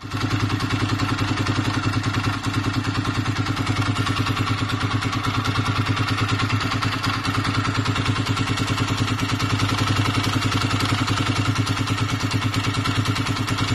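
Motorcycle engine idling steadily with a rapid, even pulsing and an unexplained mechanical noise, which the owner says comes from the valve cams.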